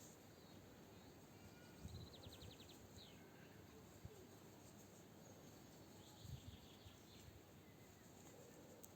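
Faint birds chirping, with a quick rapid trill about two seconds in, over a low hiss; two soft thumps and a single small click are heard.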